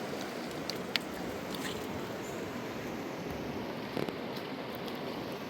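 Steady rushing of river water, with a couple of brief small clicks about one second and four seconds in.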